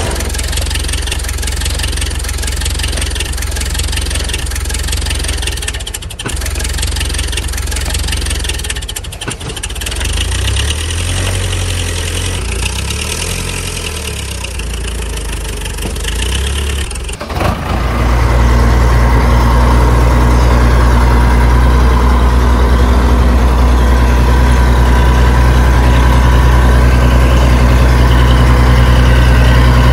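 Tractor engine sound effect laid over the scene: an engine running unevenly, dipping and rising, then about two-thirds of the way through it changes suddenly to a louder, steady idle.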